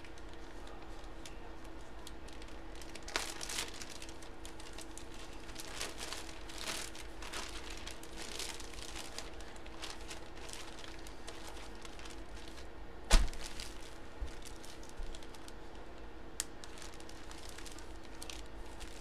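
Clear plastic bag crinkling in short, scattered bursts as a packaged jersey is handled, with one sharp knock about thirteen seconds in. A steady faint hum runs underneath.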